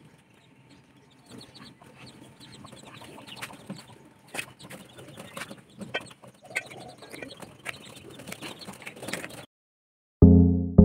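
Newly hatched chicks peeping: many short, high chirps with a few knocks from handling. The chirping stops about nine and a half seconds in, and loud keyboard music begins near the end.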